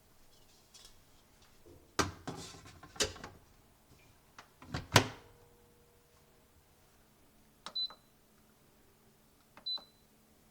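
Several sharp knocks and clatters of objects being handled, the loudest about five seconds in. Later come two pairs of clicks, each with a short high electronic beep like an appliance keypad.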